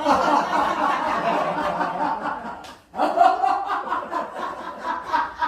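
A group of people laughing aloud together in a laughter-therapy exercise: two long drawn-out bouts of forced laughter, with a brief break about three seconds in.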